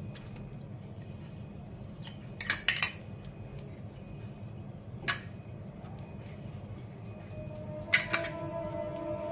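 Sharp clinks and clatters of kitchen utensils and dishes as steamed cakes are lifted out and set on a metal wire cooling rack. There is a quick cluster about two and a half seconds in, a single click near five seconds, and two more near eight seconds, over a steady low hum.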